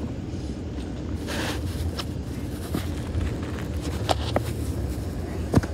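Steady low rumble of a car heard inside its cabin, with a few light clicks and knocks about four seconds in and near the end.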